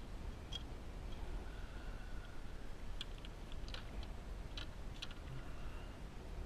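Scattered faint clicks and ticks as a landed bass and the lure in its mouth are handled, over a low steady rumble; the clicks come once early and then in a cluster in the middle.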